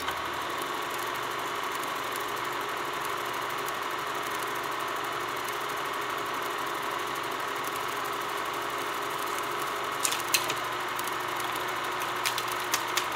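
Old film-projector sound effect: a steady mechanical whirring with a few sharp crackles about ten seconds in and near the end.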